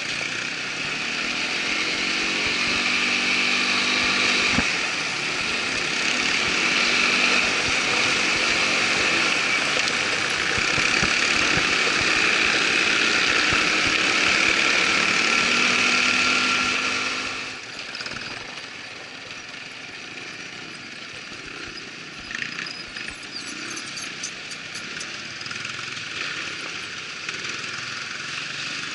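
Irbis ATV 200 quad bike's single-cylinder engine running steadily under way with a hissing rush over it. About two thirds of the way through it drops abruptly to a much quieter, rougher level, with a few scattered clicks.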